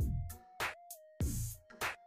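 Background music with a steady beat of sharp hits and deep low thuds under a held note. The beat briefly drops out in the middle.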